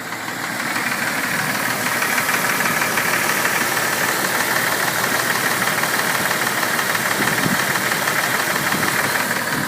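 2001 Jeep Cherokee's 4.0L inline-six engine idling with a ticking noise, growing louder over the first second and then holding steady. The tick quiets somewhat when the engine is warm but remains audible; the owner does not know its cause, and lifters or piston skirt are the suspects.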